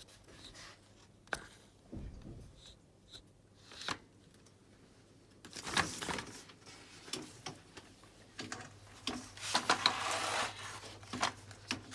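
Handling noise from a switched-off Dyson vacuum cleaner: a few sharp plastic clicks, then spells of rubbing and scraping as its parts are moved and checked.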